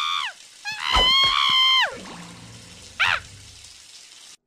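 High-pitched cartoon character voice crying out twice, the second cry sliding down in pitch, then a short squeak about three seconds in, over a steady hiss that cuts off suddenly near the end.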